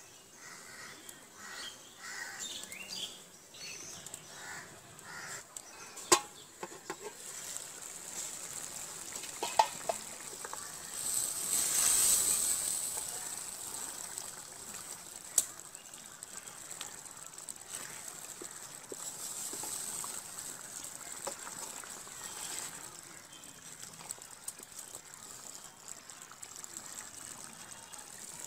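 Fish and bottle gourd curry simmering in an aluminium wok over a wood fire, a soft steady hiss with a louder hissing swell for a couple of seconds near the middle. A few sharp metallic clinks come from the pan and lid, and birds call faintly in the background.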